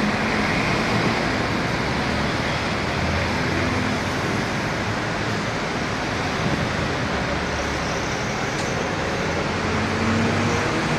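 Steady street noise: a constant rumble of engines and traffic hum, with no distinct events.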